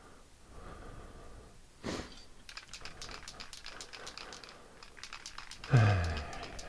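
Aerosol spray-paint can being shaken, its mixing ball rattling in a quick run of light clicks for about three seconds, followed by a short vocal sound from the man.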